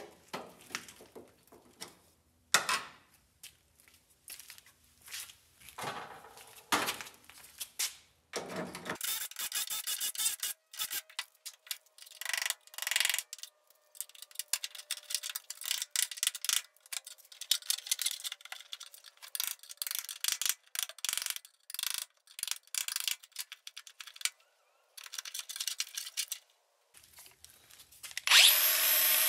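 Irregular scraping and rasping strokes of a hand tool on the rusty steel body of a Porsche 914, in short runs with pauses. About a second before the end a Milwaukee angle grinder spins up to a loud, steady high whine.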